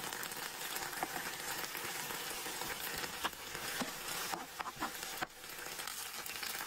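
Uncooked ramen noodles and meatballs frying in a pan of oil: a steady sizzle broken by a few sharp clicks.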